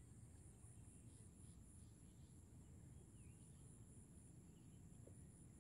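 Near silence: faint outdoor ambience with a high, steadily pulsing insect trill over a low rumble, and a few faint bird chirps.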